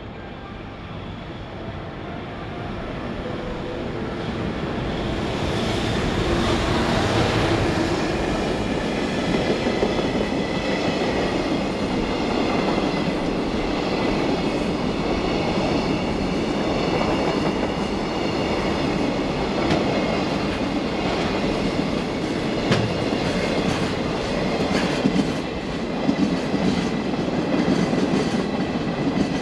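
JR Freight EF210 electric locomotive and its long train of container flatcars passing through a station without stopping. The sound builds as the train approaches, then settles into a steady rolling rumble with clickety-clack from the wheels over rail joints and thin, steady high tones above it.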